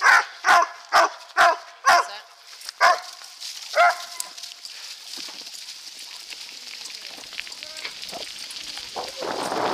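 Chinook sled dogs in harness barking in quick succession, about seven sharp barks in the first four seconds, typical of dogs eager to start pulling. The barking then stops as the team runs, leaving a steady rush of bike tyres over a leaf-covered trail and wind that grows louder near the end.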